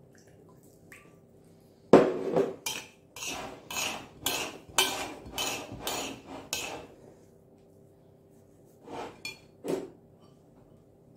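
Metal spoon scraping and clinking against a ceramic plate as it stirs damp couscous: a quick run of strokes, about two or three a second for some five seconds, then three more near the end.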